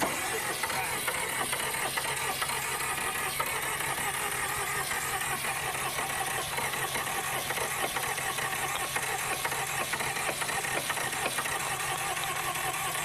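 Massey Ferguson 1010's diesel engine cranking steadily on the starter without catching, with the hiss of starting spray being sprayed into the air intake.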